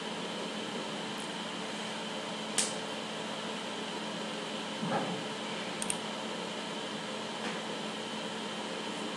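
Steady hum and hiss of background room noise, broken by a sharp click a little over two seconds in, a soft knock around the middle and a quick double click shortly after.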